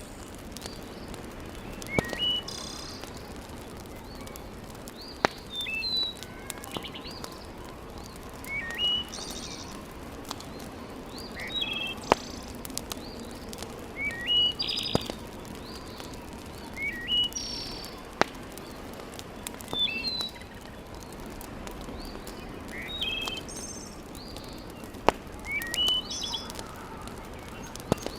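Wood fire crackling, with a handful of sharp pops standing out over a steady low hiss, while small birds chirp repeatedly, short rising calls every two or three seconds.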